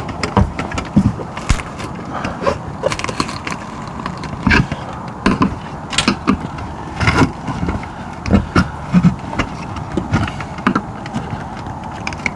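Hand tools and hands working an RV awning arm loose from the camper wall: irregular knocks, clicks and scrapes.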